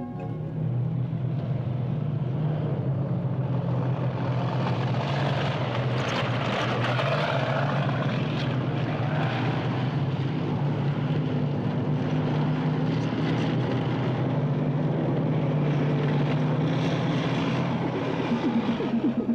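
Tanks on the move: a steady low engine drone with a broad noisy rush over it, holding at much the same level throughout.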